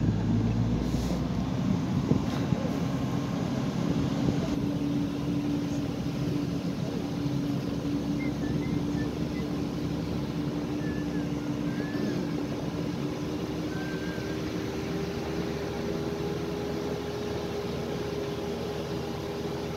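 A vehicle's engine running steadily with tyres on a gravel road, heard from inside the cab; the engine hum rises slowly in pitch. A few faint high chirps come around the middle.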